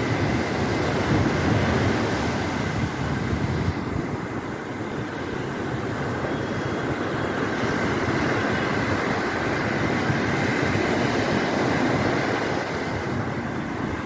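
Sea surf breaking on a sandy shore: a steady, loud roar of waves with a deep rumble underneath.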